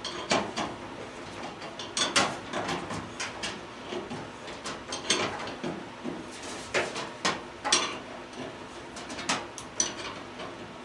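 Wrench working a brass fitting loose from a gas stove's fuel rail: irregular metal clicks, scrapes and clinks.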